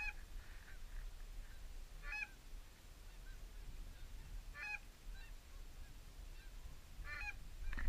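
Geese honking: a short cluster of honks and clucks about every two and a half seconds, with fainter calls between them.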